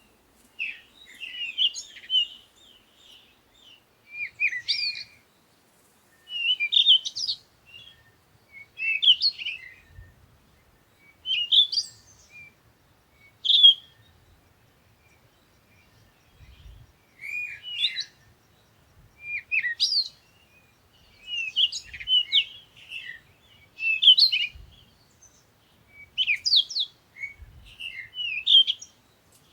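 A bird singing short chirping phrases, about one every two seconds, with a pause of a few seconds around the middle.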